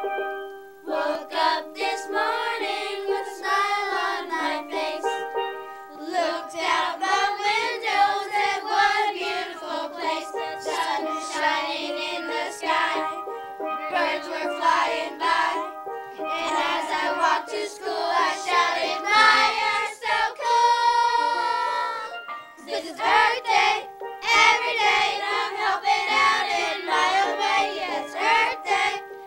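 A children's song: backing music with children's voices singing.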